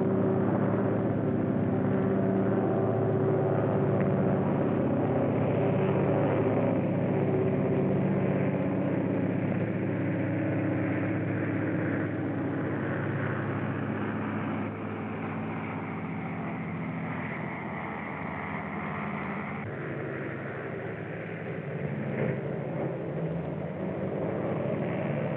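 Continuous running noise of a moving vehicle, with a steady engine drone; it drops somewhat in level about fifteen seconds in.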